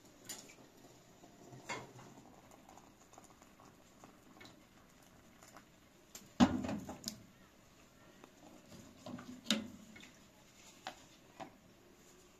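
Kitchenware handled on a gas stove: a few small clicks, a single loud clunk about six seconds in and another knock about three seconds later, as the aluminium kettle and the lidded glass teapot are set down and handled.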